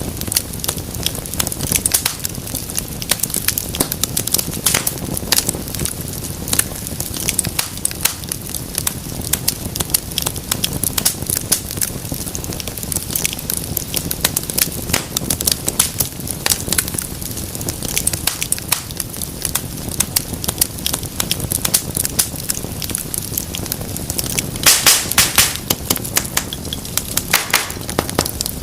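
Wood fire crackling steadily over a low rumble, with sharp pops throughout and a louder cluster of snaps near the end.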